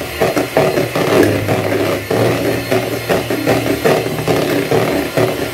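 Electric hand mixer running, its beaters whipping cream in a plastic bowl; the motor hum steps up slightly in pitch about two seconds in.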